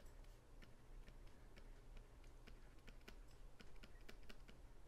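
Near silence with faint, irregular clicks, several a second: a stylus tapping on a drawing tablet as letters are written.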